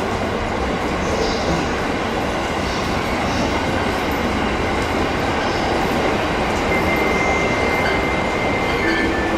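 A train running through the station on steel rails, a steady running noise, with a thin wheel squeal joining about seven seconds in.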